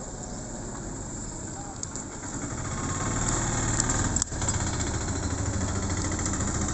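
An engine idling steadily, growing louder about three seconds in, with a brief dip a little after four seconds.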